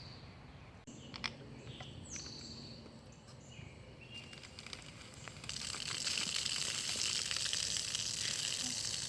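Fanta fizzing and foaming out of the bottle after Mentos are dropped in: a steady hiss that starts about halfway through and holds. Before it, a few short falling bird chirps and a single knock.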